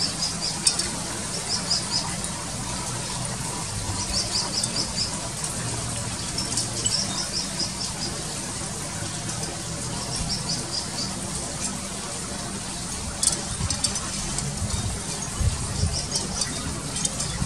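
Malaysian pied fantail fledgling calling to be fed: quick runs of high, thin notes, repeated every few seconds. These are begging calls for the parent to bring food.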